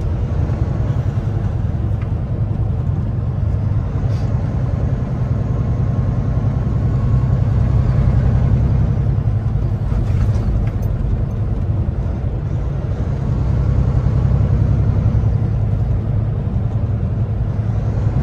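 Steady low drone of a Kenworth T680 semi truck's diesel engine and tyre noise heard from inside the cab while cruising at highway speed.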